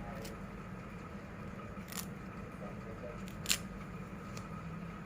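Two short sharp clicks over a steady low hum, the louder click about three and a half seconds in.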